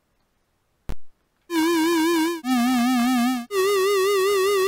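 Square-wave tones from a home-coded software synthesizer, its pitch wobbling slightly about five times a second from a 5 Hz low-frequency oscillator: three held notes, the second lower and the third highest, each starting and stopping abruptly. A short thump comes about a second in, before the first note.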